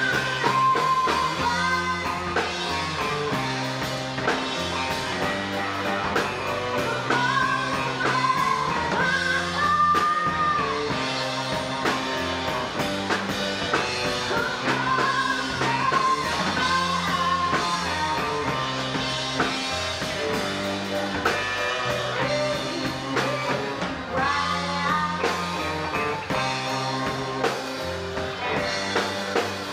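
A rock band plays live, with a woman singing lead over electric guitar, keyboards, bass and a drum kit. The drums keep a steady beat under a repeating bass line.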